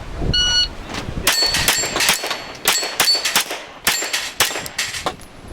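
A shot timer beeps once, then a rapid string of Glock pistol shots follows, with many of them answered by the ringing ping of struck steel plates.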